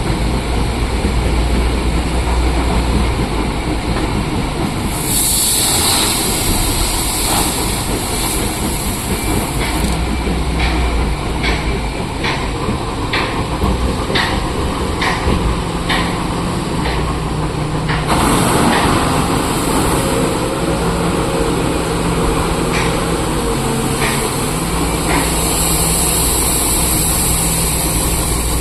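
Heavy diesel earth-moving machinery running steadily under load, with a series of sharp metallic clanks in the middle and a surge in engine noise about two-thirds of the way through.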